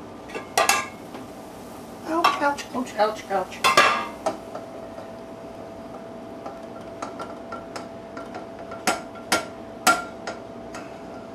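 A spatula scraping and knocking against a nonstick frying pan and a stainless steel saucepan as sausage mixture is scraped from the skillet into the pot of stuffing and stirred. There are clusters of clanks near the start, two to four seconds in, and again about nine to ten seconds in.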